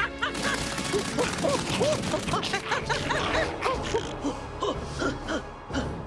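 Cartoon soundtrack: a dense flurry of short, squeaky rising-and-falling chirps and clicks over music, getting busier about a quarter second in.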